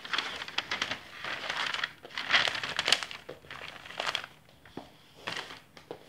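Rustling and handling noise from stiff homespun cloth pieces and paper pattern sheets being lifted, turned over and laid down, in several irregular bursts. The loudest comes about two and a half to three seconds in.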